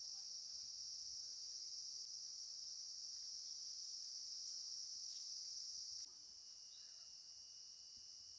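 Steady high-pitched chorus of insects in forest. About six seconds in it drops slightly and a lower, steady whine joins it.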